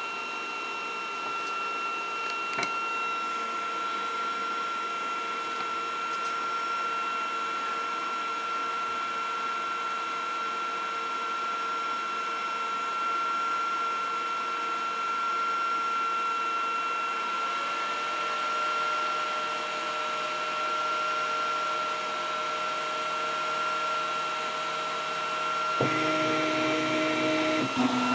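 Flashforge Adventurer 5M 3D printer's fans running with a steady high whine while the hotend heats up. About two seconds before the end its stepper motors start, buzzing in tones that jump between pitches as the print head begins to move.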